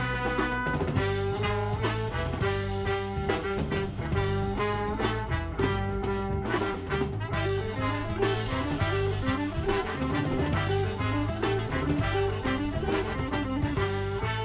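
Live funk-jazz fusion band playing, the brass section of trumpet and trombone carrying the melody over electric bass, guitar and a drum kit keeping a steady beat.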